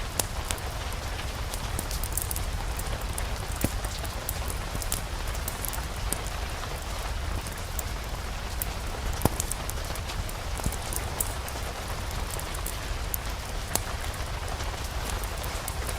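Steady rain falling, mixed with the scattered sharp crackles and pops of a fireplace fire, over a low steady rumble.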